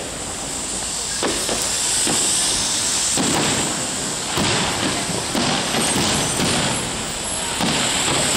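Fireworks display: a steady hissing crackle with a few faint pops and bangs scattered through it.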